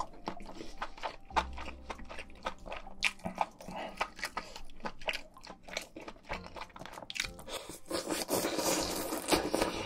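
Close-miked chewing and crunching of food in the mouth, many small wet clicks and crackles, becoming denser and noisier near the end.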